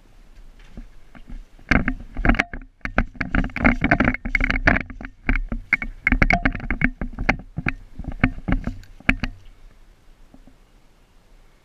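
G&G AR15 airsoft electric gun firing, with rapid bursts of shots from about two seconds in, thinning to single shots until about nine seconds in.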